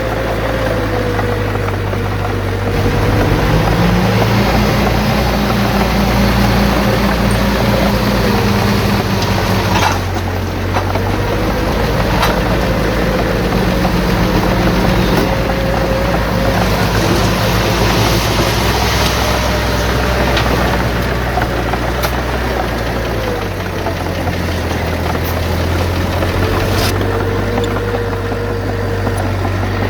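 Bulldozer's diesel engine working under load. Its pitch rises about three seconds in, drops around ten seconds and picks up again, with a few sharp metallic knocks.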